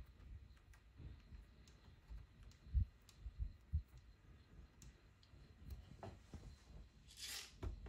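Faint clicks and light taps of a hex screwdriver turning a screw in the top of a Bambu Lab A1 extruder head, with a few low knocks from handling about three seconds in and a short louder noise near the end.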